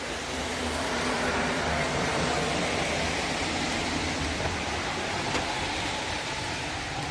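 Heavy rain falling steadily, a dense even hiss that grows a little louder about a second in.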